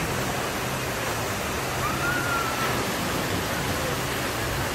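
Steady rushing of water pouring from waterslide outlets into a pool.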